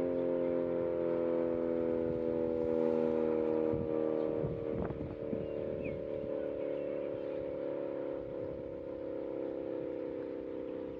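Outdoor tornado warning siren winding down: its chord of several tones slides slowly lower in pitch and fades. A brief rushing noise comes through about four to five seconds in.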